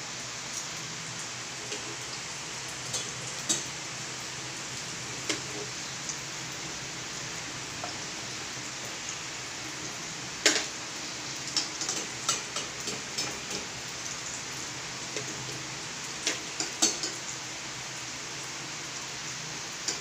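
Milkfish spring rolls (lumpiang bangus) deep-frying in a pot of hot oil: a steady sizzle with scattered pops and crackles, which come more often from about halfway through.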